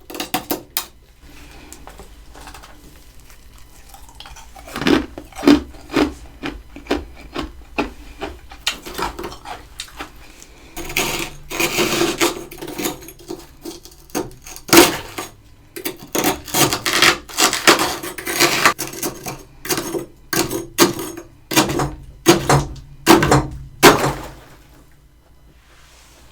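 Thick freezer frost being scraped and chipped with a utensil: irregular sharp scrapes and knocks, closely bunched through the middle and thinning out near the end.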